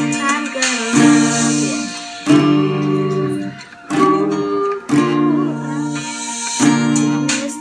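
Acoustic guitar played in slow strummed chords, a new strum about every second, with a girl singing along.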